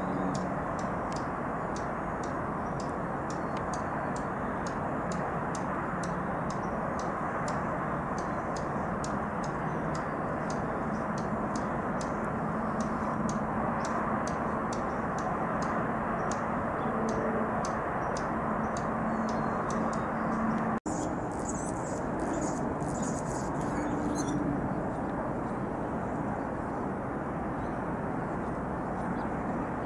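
A bird's short, high call notes repeated evenly about two to three times a second over a steady background rumble. After a cut about two-thirds of the way through, a brief burst of high twittering.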